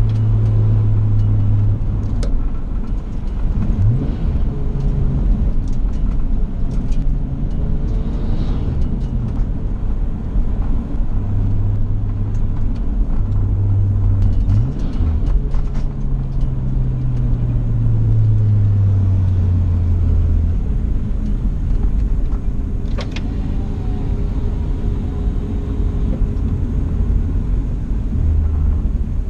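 Nissan Skyline R34 GT-T's turbocharged straight-six heard from inside the cabin, running at moderate revs with the engine note stepping and gliding in pitch a few times, then dropping to a lower, softer note after about twenty seconds as the car slows.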